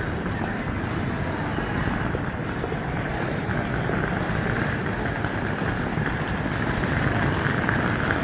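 Steady hubbub of a crowd in a large railway station concourse: many people walking and talking at once, with scattered footsteps and small clicks.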